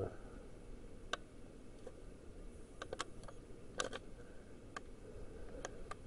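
Panasonic F-56ML2 ceiling fan running on its low speed: a faint steady hum with scattered, irregular light ticks. The owner hears a lot of bearing noise from it at this speed.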